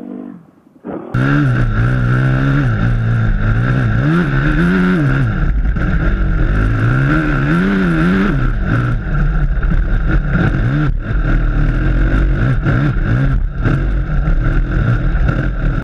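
Dirt bike engine running under way. It comes in abruptly about a second in, and its pitch rises and falls again and again as the throttle is opened and closed and gears change.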